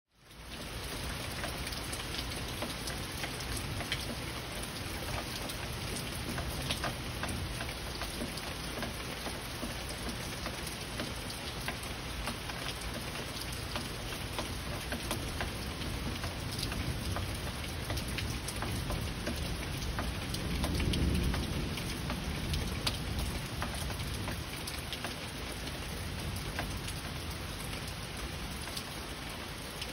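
Heavy rain falling steadily, with scattered close drops ticking. Gentle rolling thunder swells as a low rumble about twenty seconds in and fades over a few seconds.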